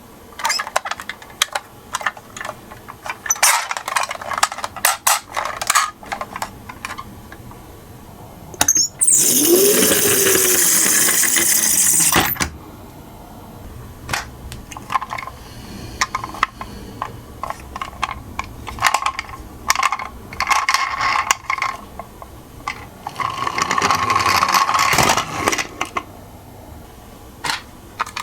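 Miniature toy cars clicking and clattering in quick irregular taps as they roll and are handled. A loud hissing noise lasts about three seconds a little before the middle.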